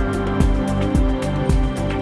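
Background electronic music with a steady beat of drum hits and ticks.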